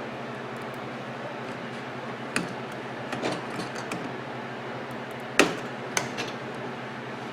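Handling of the microwave's keypad ribbon cable and its connector on the control board: a few sharp clicks and taps, the loudest about five and a half seconds in, over a steady low hum.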